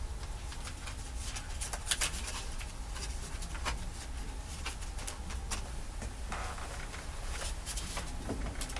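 Newspaper rustling and crackling as the sheets are handled and crumpled, with irregular crackles over a steady low hum.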